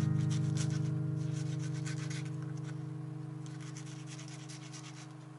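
Chef's knife slicing an onion on a wooden cutting board: repeated quick crisp cuts in small clusters. Under them a single acoustic guitar chord rings out and slowly fades.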